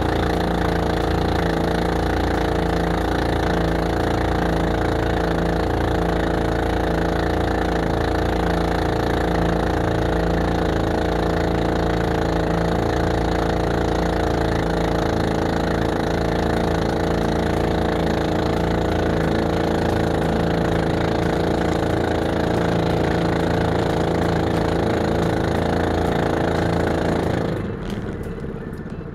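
Engine of a motorized outrigger boat (bangka) running steadily under way, then dropping sharply in level near the end as it is throttled back.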